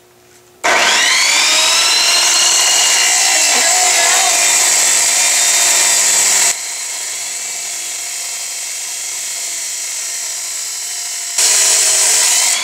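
An abrasive chop saw starts up about half a second in and cuts into steel pipe, throwing sparks. The wheel's whine sags in pitch as it bites. The saw runs quieter from about the middle until near the end, when it loads up loud again.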